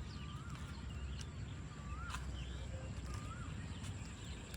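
A bird repeating a short whistled call three times, about a second and a half apart: each call is a held note that ends in an upward flick. A low rumble runs underneath.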